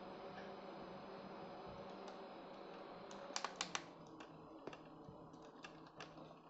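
Light, sharp clicks and taps: a quick run of four about three seconds in, then a few scattered ones, over a steady low hum.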